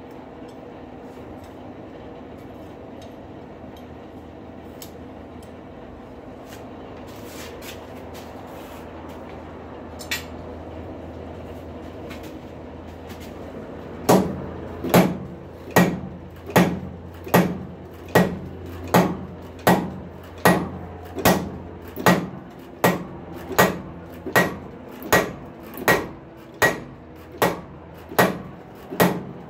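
Blacksmith's hammer striking a hot rail spike on an anvil in a steady rhythm, a little more than one blow a second, each blow with a short metallic ring. The blows start about halfway through, over a steady hum.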